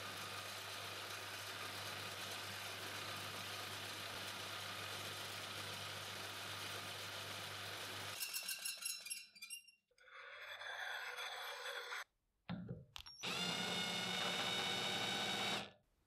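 Electric drill boring small holes into the steel of a torque wrench, motor and cutting running steadily for about eight seconds, then in a few shorter broken passes. Near the end the drill motor spins up with a rising whine, runs steadily for a couple of seconds and stops.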